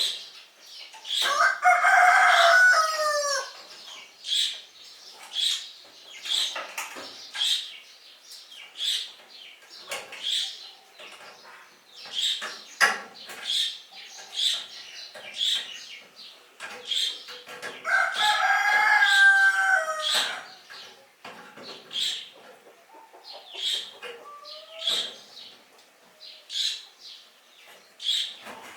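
A rooster crowing twice, each crow about two seconds long, dropping in pitch at the end: once about a second in and again about halfway through. Between the crows come many short, sharp chicken calls, roughly one a second.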